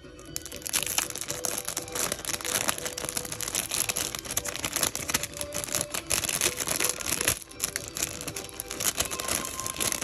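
Clear cellophane shrink wrap crinkling as it is peeled and pulled off a CD box set, a dense crackle that starts about half a second in.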